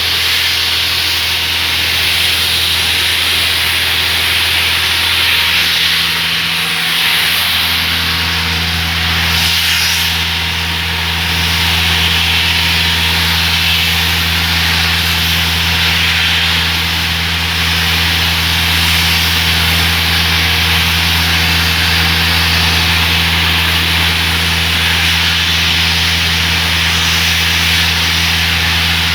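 Heavy road-construction machinery running steadily: an engine's low, even hum with a constant hiss over it.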